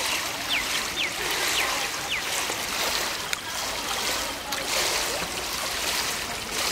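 Water splashing and churning as a child swims on her back in a pool, kicking frog-style. Four short, high, falling chirps come in the first two seconds.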